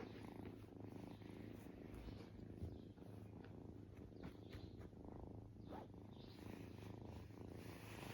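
Young kitten purring faintly and steadily, with a few soft clicks over the purr.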